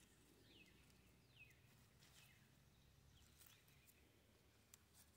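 Near silence outdoors: a faint bird repeating short, high chirps that fall in pitch, about one a second.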